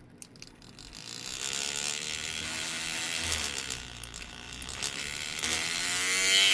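Handheld cordless hobby paint shaker running with a paint bottle clamped in its holder, its motor vibrating the bottle. It starts about a second in, eases off briefly around the middle, then picks up and grows louder near the end.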